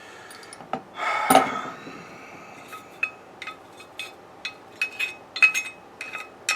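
Metal parts of a #4 bench plane clinking and clattering against each other and the bench as they are handled: one louder clatter with a brief ring about a second in, then a run of light clinks that each ring briefly.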